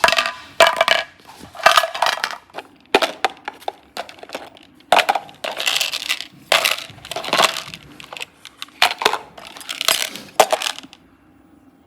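Slime being squeezed and pressed, giving a run of crunchy, crackling squishes about a second apart that stop near the end.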